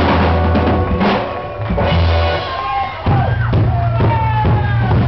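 A band playing loud rock music live, with the drum kit to the fore. The sound thins out for a moment about a second in, then the full band comes back in with sliding, bending guitar notes.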